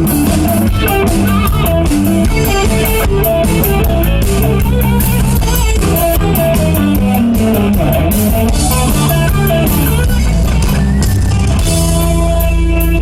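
Rock band playing an instrumental passage with no vocals: guitars over bass and a drum kit keeping a steady beat. Near the end the band settles onto a single held chord.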